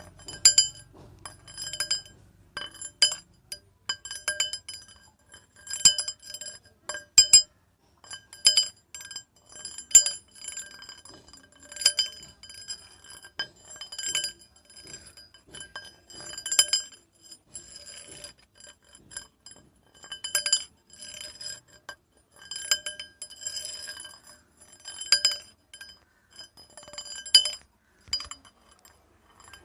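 Metal rods clinking together at irregular intervals, one or two strikes a second, each strike ringing on at the same few high pitches.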